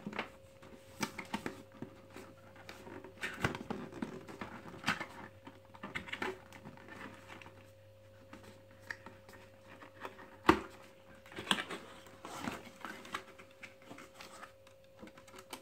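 Cardboard packaging being handled and opened by hand: irregular scrapes, taps and rustles, with one sharp knock about ten and a half seconds in. A faint steady hum runs underneath.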